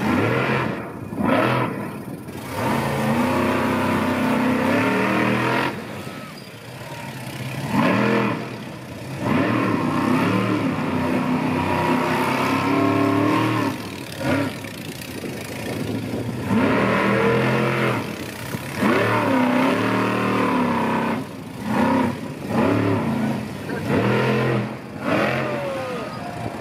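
Bigfoot monster truck's engine revving hard, its pitch rising and falling again and again as the throttle is opened and lifted, with brief lulls between bursts.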